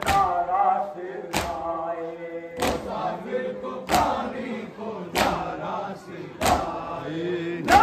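Matam: a crowd of men beating their chests in unison, one loud strike about every 1.3 seconds, with the group chanting the nauha between the strikes.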